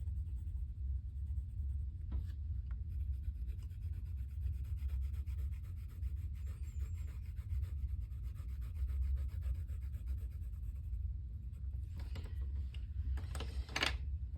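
Pencil lead lightly shading on sketchbook paper, a soft scratchy rubbing with a few firmer strokes near the end, over a steady low hum.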